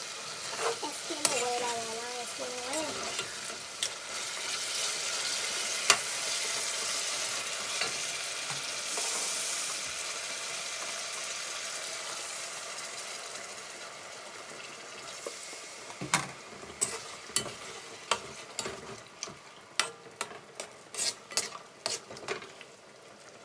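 Sliced sausage and tomato sauce sizzling in an aluminium pot while a metal slotted spoon stirs it, with a louder surge of sizzling about nine seconds in. From about two-thirds of the way through, the spoon clicks and knocks against the pot again and again.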